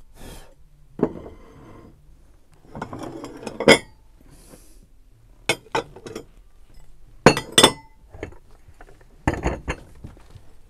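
Hand-painted Bunzlau Castle stoneware plates clinking as they are handled and set down on the shelf: a series of sharp clinks with short ringing, several in quick pairs.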